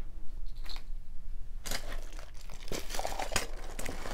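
Plastic packaging crinkling and rustling as small items are handled, with a few light clicks, starting after a quiet second and a half.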